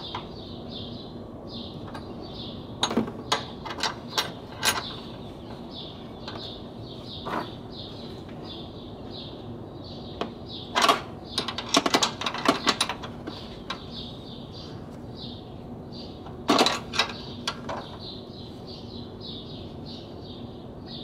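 Scattered metal clicks and clinks of a spanner on the strut top-mount nuts as they are tightened, in short clusters with the busiest run about halfway through and another a few seconds before the end. A faint high chirping repeats a few times a second behind it.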